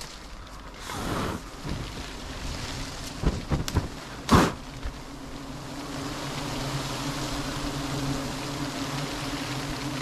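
Wind buffeting the microphone with a few sharp knocks and rustles, the loudest about four seconds in. From about halfway, a swarm of disturbed honeybees hums steadily around their opened nest.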